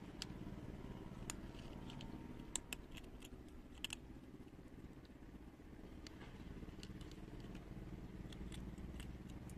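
Kittens crunching dry kibble: a scatter of short crisp clicks, thickest in the first four seconds, over a steady low background rumble.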